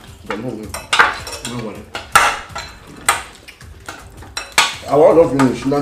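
Cutlery clinking and scraping against plates as people eat fast, with several sharp clinks.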